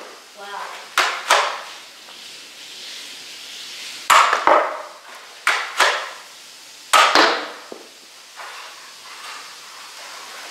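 Nerf toy blaster being shot repeatedly: four sets of sharp snapping knocks, each set a close pair a fraction of a second apart.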